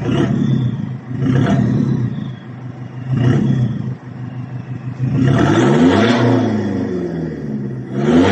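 Toyota HiAce's 2KD four-cylinder turbodiesel, with a newly fitted resonator and exhaust tips, revved from idle through the exhaust. Three short blips come first, then a longer rev that climbs and falls back, and another rev begins near the end.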